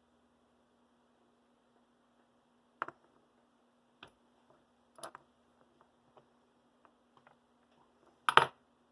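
Scattered light clicks and taps of small brass model-locomotive truck parts and tools being handled on the bench, the loudest click near the end, over a faint steady hum.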